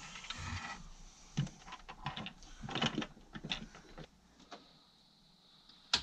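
Irregular clicking and rattling of small hard parts being handled, stopping after about four seconds. A faint steady high whine follows, then one sharp click near the end.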